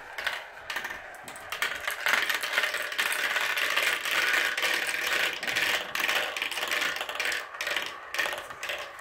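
Marbles rolling and clattering down a plastic marble run's tubes, ladder tracks and funnels: a rapid patter of clicks and rattles that thickens about two seconds in and thins out near the end.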